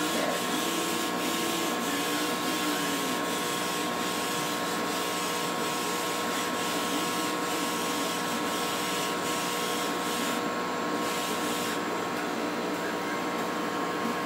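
CO2 laser cutter running a job: a steady machine whir from its exhaust fan, with several constant motor tones as the laser head travels over the wood.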